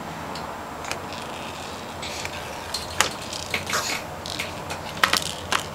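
Hard plastic stacking-ring toys knocking and clicking as a baby handles them, a scatter of sharp clicks and crackles through the second half, over a steady background hiss.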